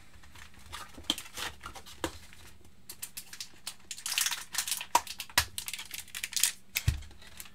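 Hands opening a cardboard trading-card box: a run of scraping, rustling and clicking from the lid and flaps, then a cellophane-wrapped pack crinkling as it is pulled out, with a dull thump near the end.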